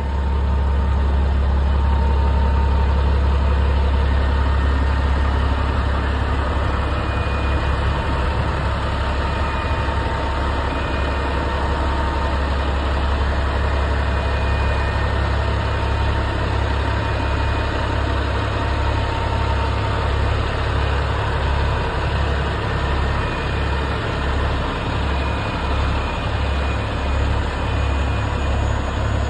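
Heavy-duty diesel tow truck engine idling with a deep, steady rumble.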